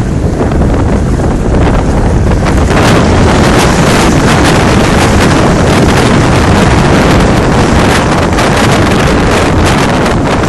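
Loud, steady rushing noise buffeting the microphone, dense with rapid crackles.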